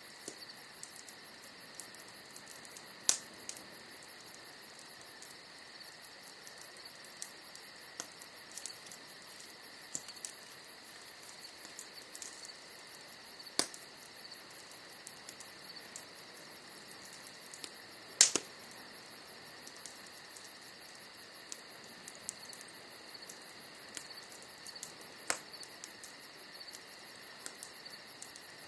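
Wood fire crackling, with scattered sharp pops; the loudest come about 3, 13, 18 and 25 seconds in. Behind it runs a steady high insect chirring with a fast, even pulse.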